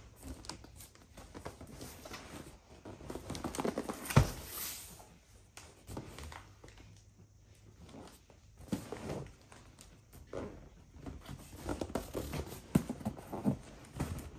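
A large cardboard box being handled and turned over, with cardboard scraping, rubbing and knocking and one loud thump about four seconds in.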